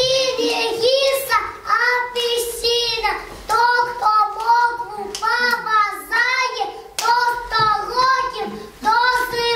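A little girl singing a song solo in a high voice, in short phrases of about a second with held notes.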